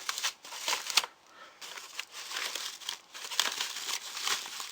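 Packaging being handled during unboxing: crinkling and rustling, with sharp knocks near the start and about a second in, a brief lull, then more rustling.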